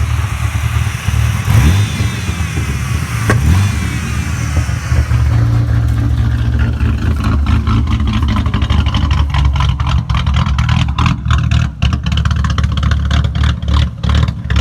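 3.8-liter V6 engine idling roughly with an uneven, choppy lope, caused by the unplugged brake booster vacuum hose: a deliberate vacuum leak that makes it sound like a cammed engine.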